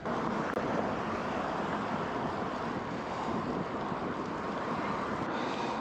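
Steady rushing wind noise on the microphone while riding a bicycle along a street.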